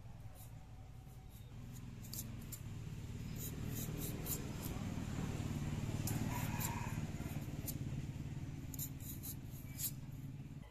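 Hand-held vegetable peeler scraping the skin off a potato in short, irregular strokes, over a low rumble.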